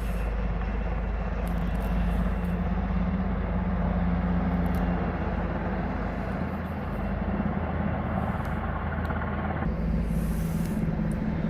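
Black Hawk helicopter flying a bucket run, a steady drone of engine and rotor.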